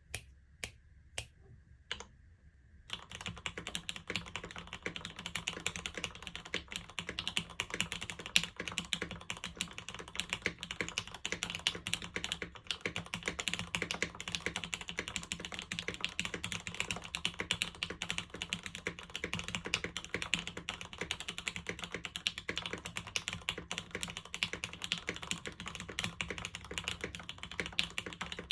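Custom tenkeyless mechanical keyboard (SINGAKBD Jaguar V1, top-mounted 2 mm full aluminium plate, lubed and filmed Gateron Oil King linear switches, GMK keycaps) being typed on: four single keystrokes, then steady fast typing from about three seconds in.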